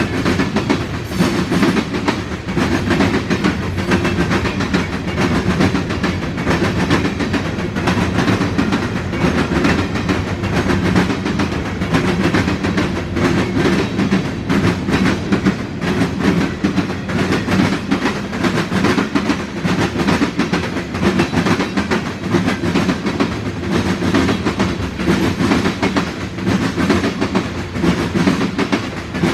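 Freight cars of a long CSX manifest train rolling past, steel wheels clacking over the rails in a dense, steady stream with a continuous rumble.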